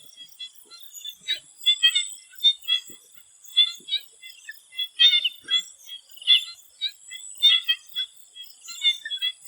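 Swamp frogs calling in an irregular chorus of short, overlapping chirping calls, over a steady high-pitched buzz.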